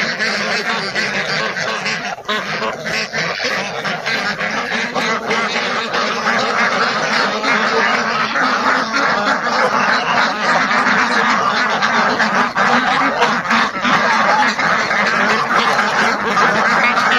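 A large flock of domestic ducks quacking loudly in a dense, continuous chorus as they crowd in to feed on freshly poured rice bran.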